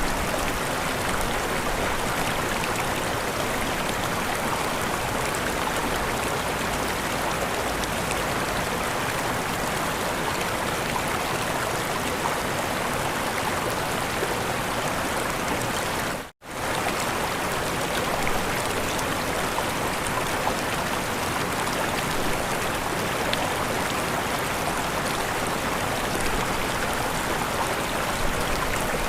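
A river running over small waterfalls: a steady, even rush of flowing and splashing water. It drops out for an instant about halfway through, then carries on unchanged.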